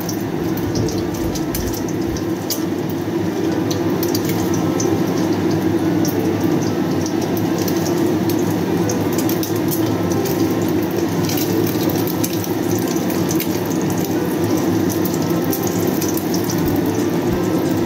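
Egg frying in sesame oil in a wok, the hot oil sizzling with irregular crackles and the spatula now and then scraping the pan, over a steady low hum.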